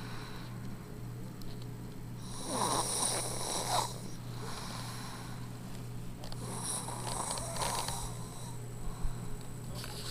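Snoring in sleep: two long snores about four seconds apart, over a steady low hum.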